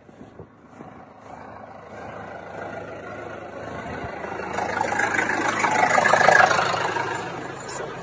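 New Holland T5060 tractor engine running steadily, growing louder over several seconds and loudest about six seconds in.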